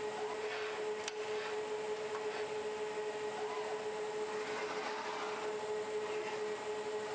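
Nov-O-Matic automatic sectional warper running as its drum winds yarn bands: a steady machine hum with one constant tone over an even hiss.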